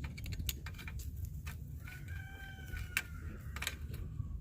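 A rooster crowing once, about two seconds in, one call of a little over a second that dips in pitch at its end. Scattered sharp clicks and knocks of fencing work sound around it over a low rumble.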